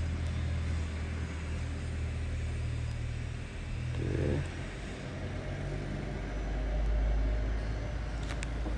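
Steady low rumble of city traffic, sinking a little deeper and louder in the second half, with a short mid-pitched sound about four seconds in.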